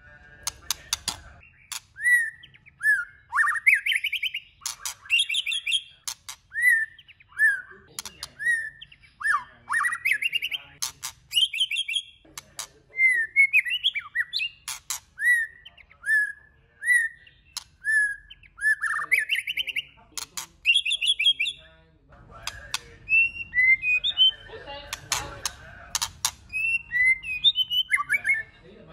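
White-rumped shama singing: a long run of varied whistled phrases, short falling whistles and rising sweeps coming about once a second, mixed with sharp clicking notes.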